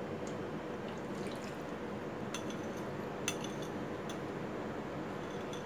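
Cooking oil being poured from a small bowl into a steel pot, then a few light clinks of a metal spoon against the pot, the loudest about three seconds in, over a steady faint hum.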